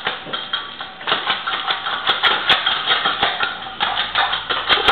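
German Shepherd puppy eating fast from a food bowl: rapid, irregular crunching and clicking as it chews and its muzzle knocks the bowl against the tile floor.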